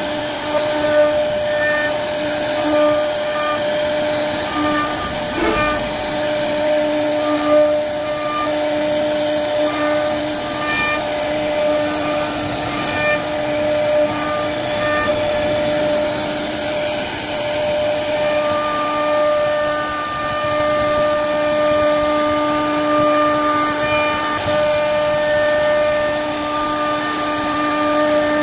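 CNC router spindle running with a steady whine while its bit carves a wooden bed panel, over the hiss of the bit cutting wood. A higher tone comes and goes in short dashes through the first half, then holds steady later on.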